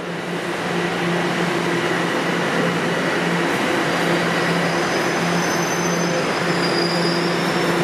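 Toronto TTC subway train running through a station with a steady loud rumble and hum. Thin high-pitched whines come in about halfway through.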